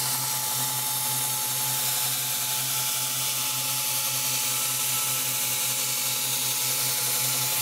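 Belt grinder running steadily with a 100-grit belt, a steel chopper blade held against the slack top of the belt: an even grinding hiss over the hum of the motor. This is rough-grinding the edge bevels, rolling the cutting edge in.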